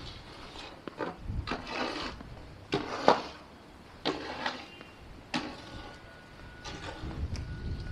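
Footsteps crunching through fresh snow in an uneven walking rhythm. A faint steady high tone comes in about three-quarters of the way through.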